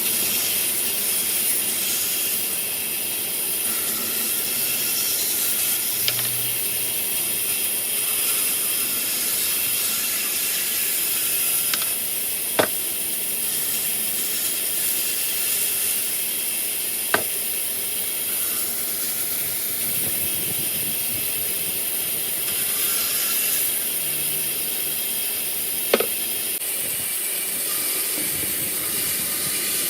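Woodworking machine running with a steady hiss, broken by a few sharp clicks several seconds apart.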